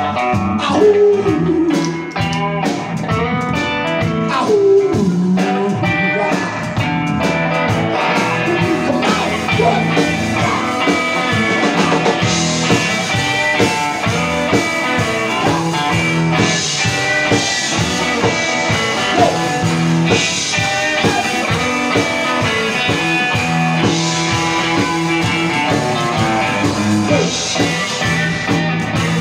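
A live blues-rock band playing an instrumental passage: electric guitar over upright bass and drums, with a steady beat throughout.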